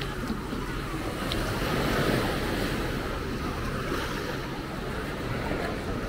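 Sea surf washing onto a sandy beach, a steady rush that swells about two seconds in, with wind rumbling on the microphone.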